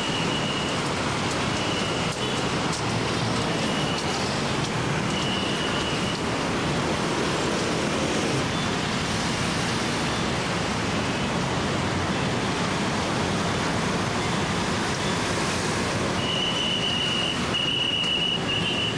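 Busy street traffic: motorcycle and bus engines running and tyres on the road in a steady wash of noise. A high steady tone comes and goes in short spells several times in the first few seconds and again near the end.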